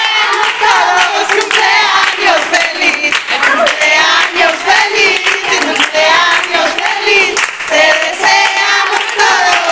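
A group of people singing and shouting together, with hand clapping.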